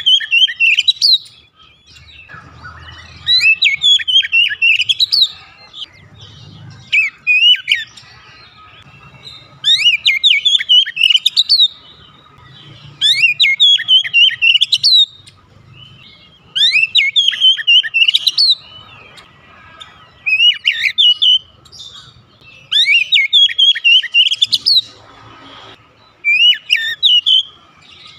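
Oriental magpie-robin singing loudly in repeated bursts of rapid, sharp, falling whistled notes, each burst one to three seconds long with short pauses between, about nine in all.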